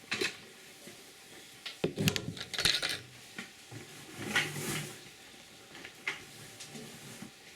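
Scattered knocks and light metal clatter, with a dense cluster about two to three seconds in and a single knock around six seconds.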